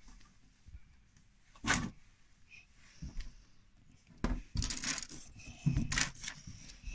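Small hard plastic toy pieces clicking and tapping against a tabletop as they are picked up and set down: a handful of short sharp clicks, the loudest about two seconds in and several more near the end.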